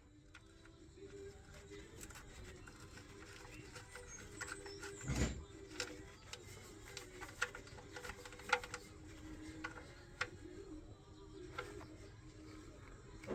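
Engine oil draining out of the open sump plug hole into a drain pan, a faint steady pouring with scattered clicks and drips.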